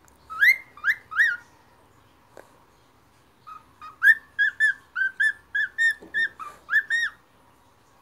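Cockatiel whistling a song: three rising whistled notes, then after a short pause a quick run of about a dozen short whistled notes.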